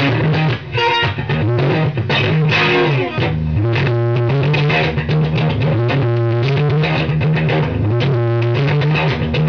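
Electric guitar playing a riff of low notes that repeats about every two seconds, with higher notes over it.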